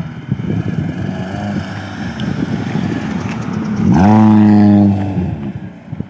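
Car engines running close by, with a rough, uneven low rumble. About four seconds in comes a loud pitched sound that sweeps up and holds for about a second before dropping away.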